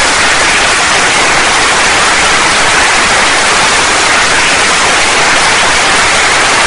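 Loud, steady, dense applause.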